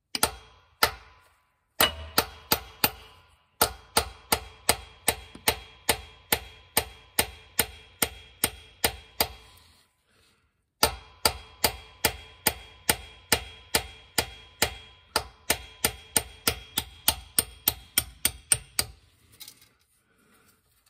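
Hammer blows on a pin punch, metal on metal with a short ring after each, about three strikes a second, drifting the roll pin out of a classic Mini's gearbox selector-shaft collar. The blows come in two long runs with a pause of about a second in the middle.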